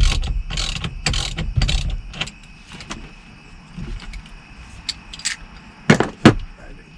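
Ratchet wrench backing off the steering wheel retaining nut: a run of ratcheting strokes, then a pause and two sharp metal clinks near the end.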